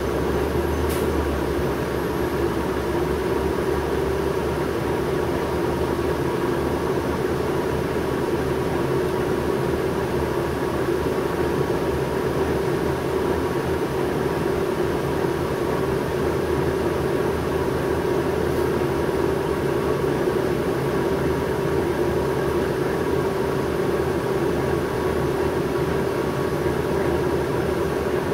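Cabin sound of a New Flyer C40LF transit bus sitting stopped, its natural-gas engine idling with a steady, even hum.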